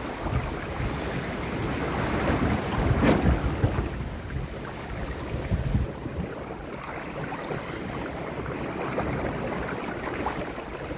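Wind buffeting the microphone over water rushing and splashing along a sailboat's hull as it sails through choppy waves. The wind noise swells loudest about three seconds in.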